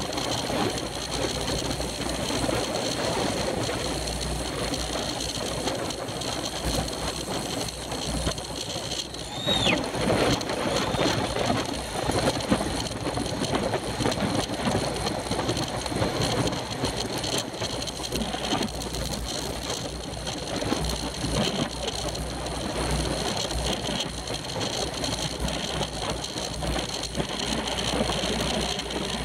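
Steady wind rush and road rumble on the microphone of a camera mounted on a racing bicycle riding at speed. About nine and a half seconds in there is one brief high squeak that rises and falls.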